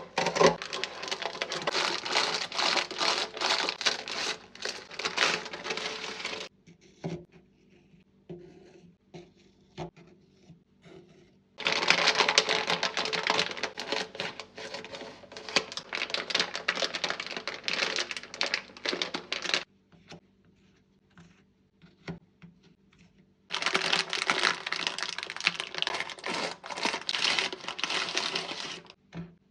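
Candy and chocolate wrappers crinkling as packages are handled and unpacked, in three long stretches of dense crackling separated by pauses holding only a few small taps and clicks.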